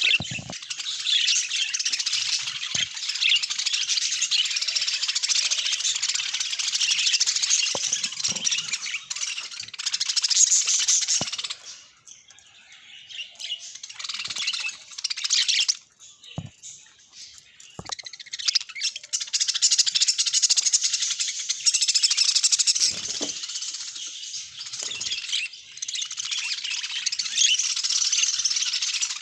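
Budgerigars chattering and warbling in a dense, continuous stream of chirps. The chatter breaks off briefly about twelve seconds in and again for a few seconds around the middle.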